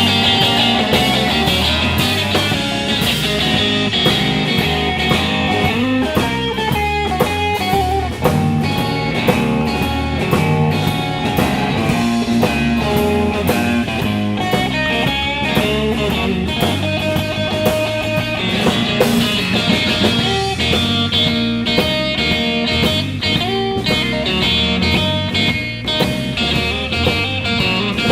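Live blues-rock trio playing an instrumental stretch: guitar over bass guitar and a drum kit keeping a steady beat, with no singing.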